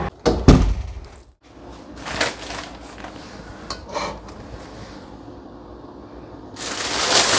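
Two sharp knocks near the start, then faint handling taps, and near the end a loud rustle of a plastic shopping bag being handled.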